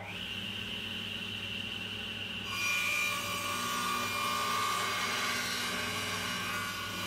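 Table saw running with a steady motor hum. About two and a half seconds in, its blade starts cutting into a totara log clamped on a sled, and a louder, brighter cutting noise comes in and holds.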